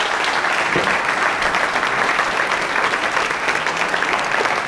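Audience applauding steadily in a large hall, many hands clapping.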